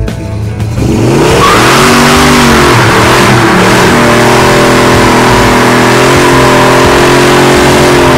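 Classic muscle car's engine revving up about a second in and then held at high revs while the rear tyres spin against the pavement in a smoky burnout, the front brakes held by a Hurst Roll Control line lock.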